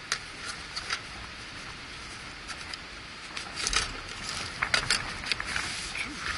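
Wind buffeting the microphone with a steady low rumble, and scattered clinks and clatters of camp stove gear being handled, several in quick succession about four to five seconds in.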